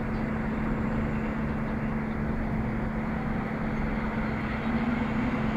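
Diesel engine of a truck-mounted mobile crane running steadily, a constant low drone that swells slightly near the end.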